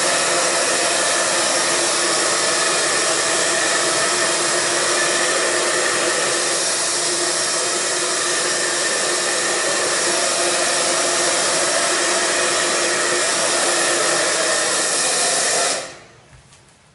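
Handheld hair dryer blowing steadily as hair is dried and shaped, then cutting off suddenly near the end.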